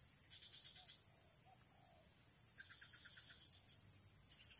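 Outdoor insect chorus: a steady high-pitched drone, with a few short trains of quick chirps, each a rapid run of about eight pulses, coming and going.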